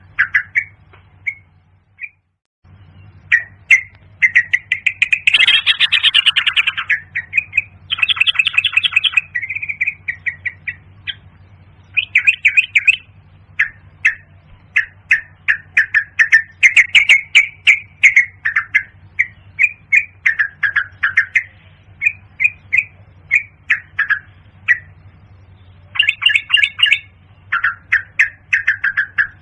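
Yellow-vented bulbul calling: short phrases of quick notes, repeated with brief pauses, over a steady low hum. There is a short break about two seconds in.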